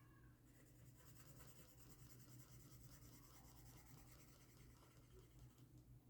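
Near silence with the faint scratching of drawing strokes on paper as tree branches are sketched line by line, over a low steady hum.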